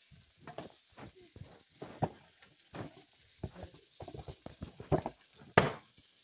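A cardboard food box being handled and crumpled: a quick run of rustles, taps and knocks, with one sharp knock about five and a half seconds in. Faint frying sizzle from the pan runs underneath.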